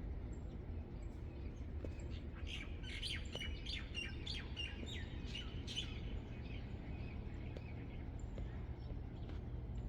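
Several birds chirping and calling, with a dense run of quick high chirps from about two to six seconds in, then sparser calls, over a steady low background hum.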